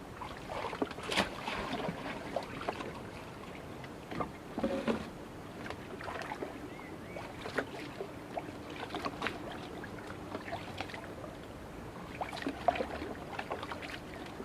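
Water splashing and sloshing with scattered knocks and clatters, as from handling traps on the water, over a faint steady hum.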